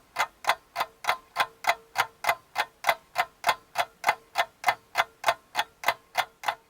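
Steady clock-like ticking, about three and a half ticks a second, with a faint steady tone beneath.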